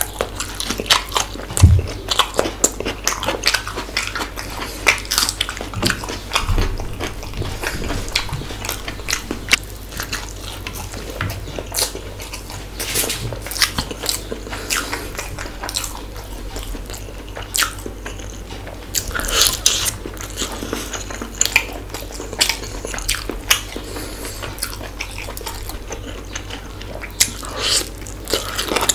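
A man chewing and biting close to the microphone as he eats spicy fish curry and chicken pulao with his fingers: a dense, irregular run of wet mouth clicks.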